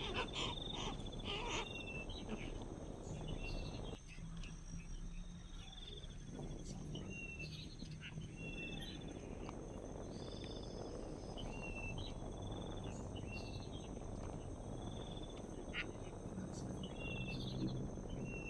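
Steady high-pitched insect trill, with a short two-note chirp repeating every one to two seconds.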